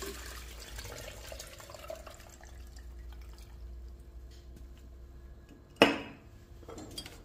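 Water poured into a blender jar over chopped fruit, the pour's pitch rising as the jar fills. A single sharp knock near the end.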